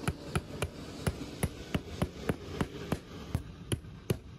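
Hammer striking in a steady run of quick blows, about three a second, fastening a conduit's roof flashing on asphalt shingles.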